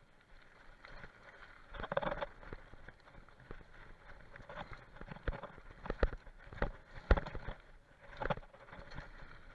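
Downhill mountain bike ridden fast over a dirt trail: tyre noise on the dirt with a run of sharp knocks and rattles as the bike hits bumps, loudest about two seconds in and again around six to seven seconds in.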